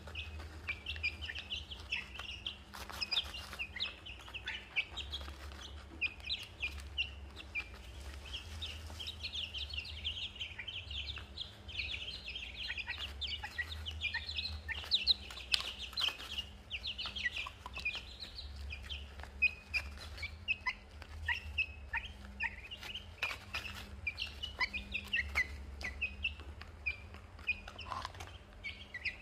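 A flock of young chickens peeping and chirping nonstop, many short high calls overlapping, over a low steady hum.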